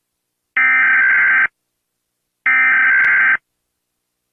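Emergency alert alarm tone sounding in pulses: two beeps of about a second each, made of several steady high tones together, with silence between them.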